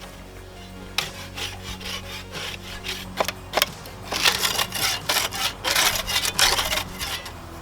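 Small handsaw scraping and sawing the bark off a log: a few separate strokes, then quick back-and-forth rasping strokes from about four seconds in.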